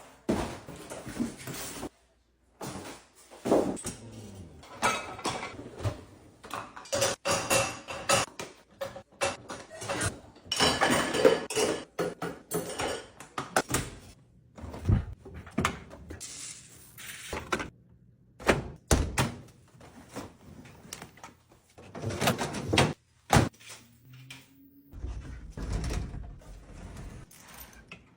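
Unpacking noises, most likely the espresso machine being taken out of its box: rustling packaging with repeated knocks and thuds, in short clips separated by abrupt cuts.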